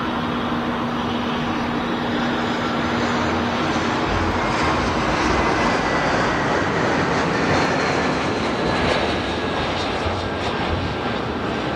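Jet engines of an Airbus A320-family airliner running steadily at taxi power, a continuous jet whine, with a faint high steady tone coming in about halfway through.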